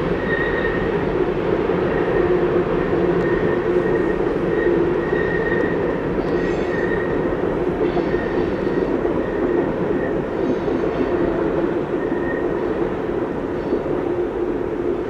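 Freight train tank cars rolling over a curved steel trestle bridge: a loud, steady rolling noise of wheels on rail. A thin wheel squeal comes and goes on the curve.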